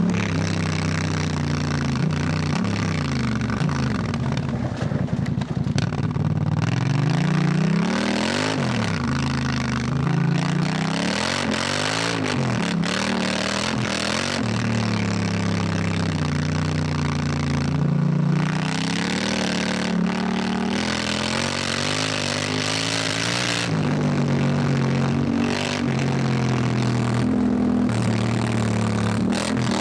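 Honda Africa Twin's parallel-twin engine under way, its pitch climbing and dropping again and again as it accelerates and changes gear, over a steady rush of noise.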